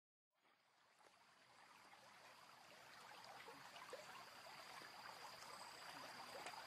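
Near silence: a faint hiss with fine crackling slowly fades in, with a faint steady high-pitched tone over it.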